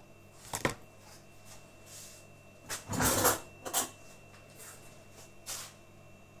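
A few short knocks and clatters of kitchen containers and bottles being handled on a tabletop, the loudest about three seconds in.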